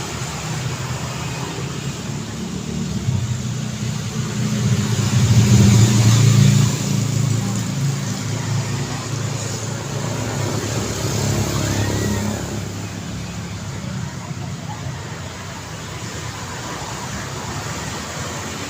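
City street traffic: a steady wash of car engines and tyres, with one vehicle passing close and loudest about five to six seconds in.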